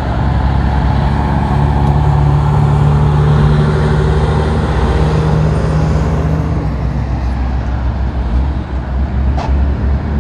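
Heavy diesel cargo trucks running past on a highway: a deep, steady engine drone, loudest in the first half and easing off after about seven seconds.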